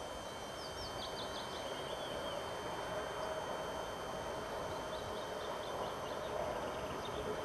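A 2TE116 diesel locomotive approaching under power, its diesel engine drone growing slowly louder. Small birds chirp in two quick runs of high notes, near the start and again near the end.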